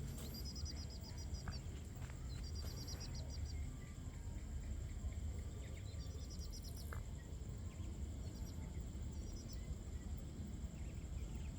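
Outdoor night ambience: a steady high-pitched insect drone, with short rapid chirping trills about every two to three seconds, over a low rumble.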